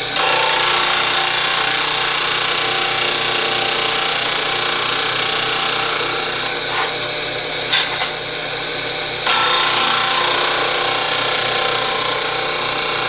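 12-inch disc sander running with a steady motor hum while a metal part held in a chamfer jig is ground against the abrasive disc. The grinding noise starts sharply, eases about eight seconds in with two quick knocks as the part is shifted, and picks up again a second later.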